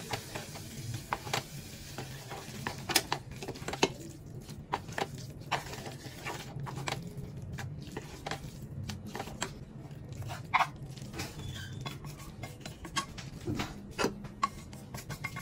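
Chopsticks stirring instant noodles in a saucepan, with many irregular clicks and scrapes against the pot's side, over a steady low hum. Near the end the noodles are tipped from the pot onto a ceramic plate.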